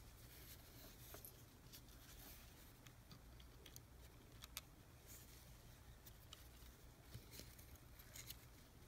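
Near silence with faint, scattered clicks and rustles of small metal parts being handled: a coil spring and threaded air-inlet fitting being fitted into an air impact wrench housing.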